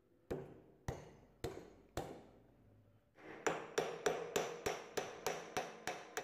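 A hammer striking metal: four separate blows about half a second apart, then a quicker run of about ten blows, each ringing briefly.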